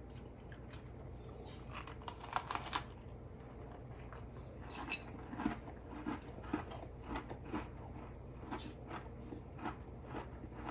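Faint, irregular small clicks and crackles of someone eating a popping-candy Oreo, with a short cluster about two seconds in and scattered ticks through the second half.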